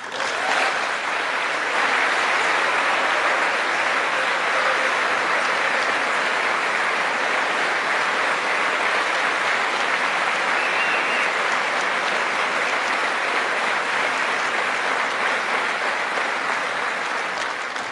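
A large crowd applauding, a dense, steady clapping that starts right after a spoken line and dies away near the end.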